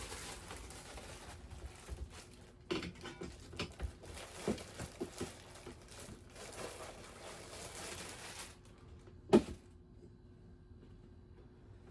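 Handling noise from ceiling fan parts being assembled: scattered rustles and light clicks, with one sharp knock about nine seconds in.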